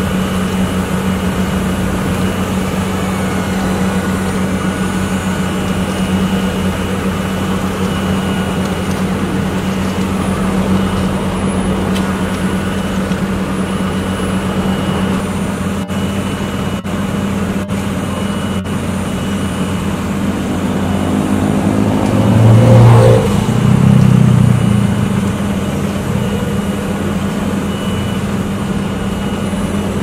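Volvo asphalt paver's diesel engine running steadily as it lays tarmac, a constant even hum. About three-quarters of the way through, a louder engine sound swells for two or three seconds, its pitch shifting, then settles back.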